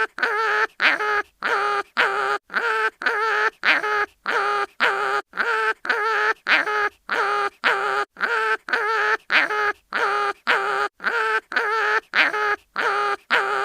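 Cartoon animal crying-in-pain sound effect: a short pitched wail repeated evenly about twice a second, as a loop.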